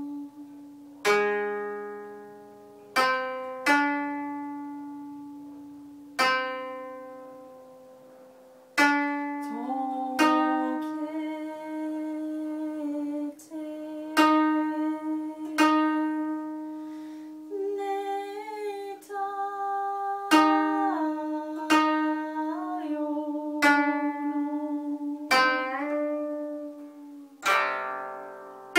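Koto being played: single plucked notes that ring and slowly fade, spaced out at first and then coming closer together after about nine seconds. Several notes are bent up in pitch or made to waver after the pluck, the string pressed down beside its bridge.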